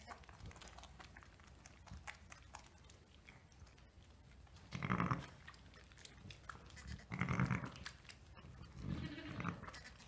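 A ewe gives three short, low bleats, about five, seven and nine seconds in, as she licks her newborn lamb. Faint licking and straw rustling fill the gaps.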